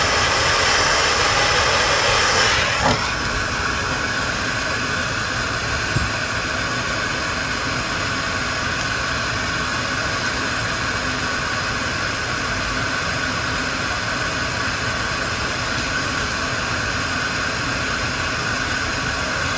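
Butane micro torch burning with a steady hiss of its jet flame. About three seconds in, a light knock as it is set down on its stand, and the hiss goes on a little quieter.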